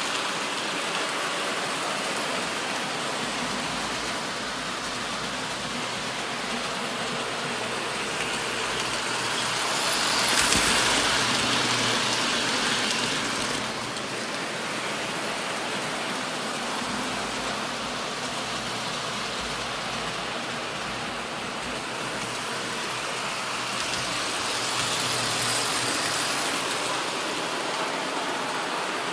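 Standard gauge tinplate electric toy train running on three-rail metal track: a steady rumble and clatter of wheels and motor, growing louder for a few seconds about a third of the way in and again near the end.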